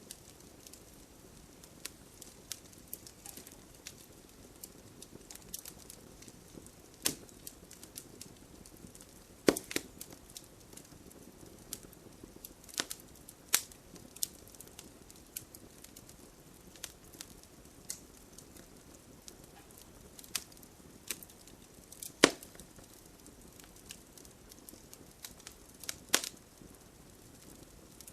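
Wood fire burning in a fireplace: a low steady hiss with irregular crackles and sharp pops of the burning logs, a handful of them louder than the rest.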